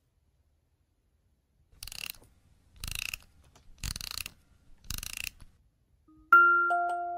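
A wind-up music box being wound: four short ratcheting bursts about a second apart. Near the end the music box starts playing a melody of bright plucked notes.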